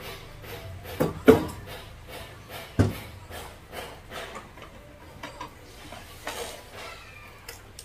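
Trophies being handled and set down in a wooden display cabinet with glass shelves: three sharp knocks in the first three seconds, with lighter clicks and rustling between.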